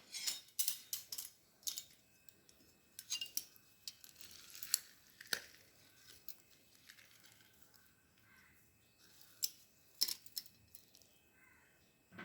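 Scattered light clicks and taps of kitchen handling, with a short rustling scrape about four seconds in, as a lemon is squeezed over the chicken.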